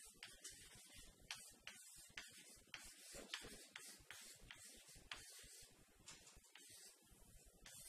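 Chalk writing on a blackboard: faint, irregular taps and scratches as the letters are written.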